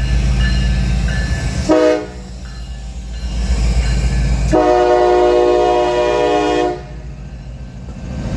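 CSX diesel locomotives running light, their engines rumbling as they pass, sounding the air horn: a short blast about two seconds in, then a long blast of about two seconds. This is the close of the long-long-short-long grade-crossing signal.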